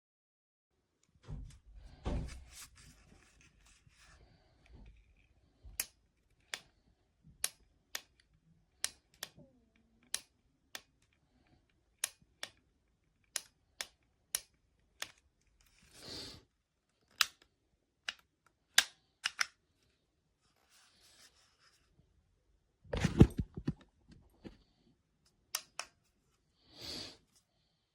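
Crimping hair iron being clamped shut and opened over and over, a string of sharp plastic clicks about once a second. There are a few short hissing brushes and a louder cluster of knocks near the end.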